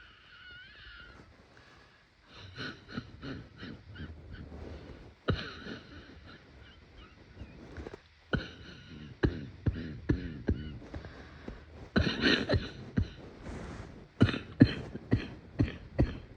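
A sick person coughing: a single cough about five seconds in, then spaced coughs, ending in a quick run of about six near the end.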